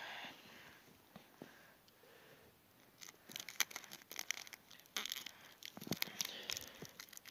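Adhesive deer kill tag crinkling and its backing peeling as it is wrapped around the antler by hand. After a quiet start, irregular sharp crackles begin about three seconds in.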